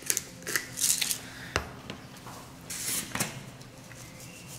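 A hand pepper mill grinding peppercorns in a few short crunching bursts, then a single knock about one and a half seconds in. Near the three-second mark comes a brief hiss of salt shaken from a plastic shaker.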